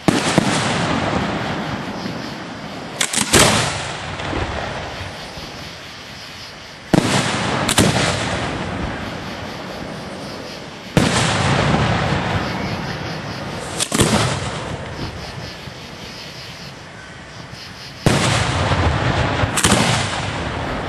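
Fireworks display: about eight sharp shell bangs, some in quick pairs, each trailing off in a rumbling echo and crackle that fades over several seconds.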